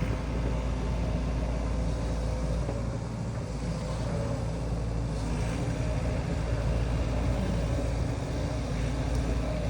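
Diesel engines running steadily, a low even drone from heavy machinery close by: a tractor's engine and an excavator at work.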